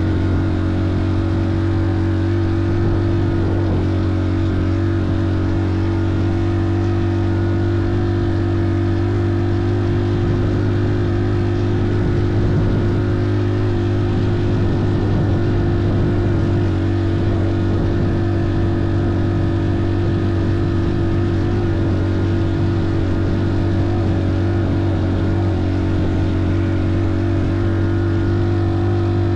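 Engine running at a steady speed, a constant low drone with an even layer of wind and road noise over it.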